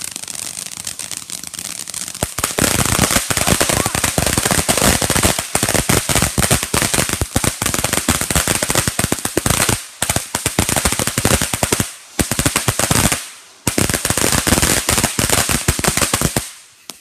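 Ground fountain firework spraying sparks with a hiss. About two seconds in it breaks into a loud, dense run of rapid crackling pops, which breaks off briefly a few times and stops just before the end.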